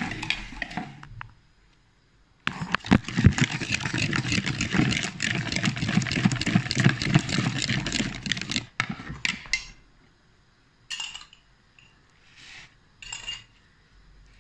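A hand whisk beating egg yolks and sugar in a bowl, its fast strokes clattering against the bowl for about six seconds after a short pause near the start. A few separate clinks follow near the end.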